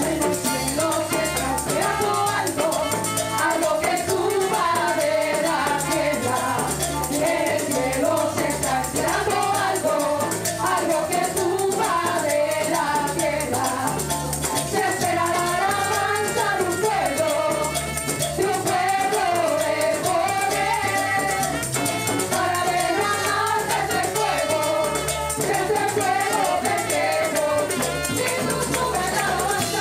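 Live gospel music: several women sing together over a small band of timbales, guitar and trumpet, with a steady beat.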